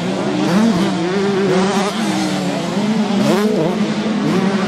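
Several 125 cc two-stroke motocross bikes racing on a dirt track, their engines revving up and down over a steady engine drone.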